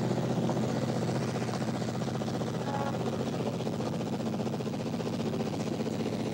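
A steady low hum over an even hiss of background noise, with no distinct events.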